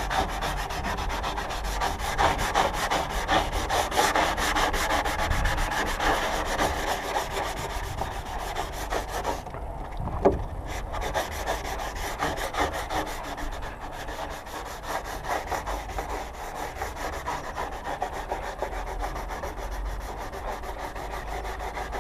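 Hand sanding of cured body filler on a motorcycle's lower fairing panel with 120-grit paper on a sanding block: quick back-and-forth scratching strokes, with a short pause and a small knock about ten seconds in.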